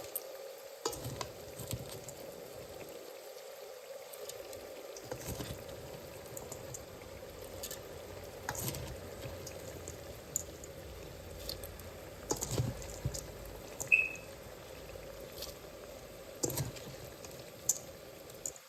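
Khichuri cooking in a pot: a steady low cooking hiss, with scattered clicks and knocks of a utensil against the pot.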